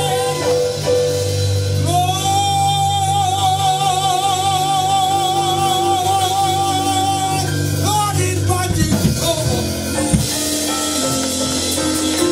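Gospel singing: a solo voice through the church PA holds one long note with vibrato for several seconds, over live band accompaniment with drums.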